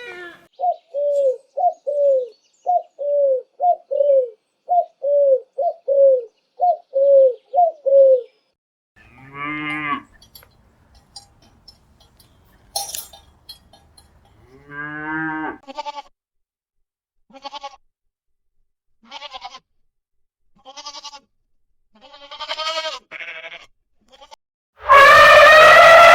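A sequence of separate animal calls. First a fast run of short pitched calls, about two a second. Then two longer, lower bleating or lowing calls, a string of short sharp calls, and a loud long call near the end.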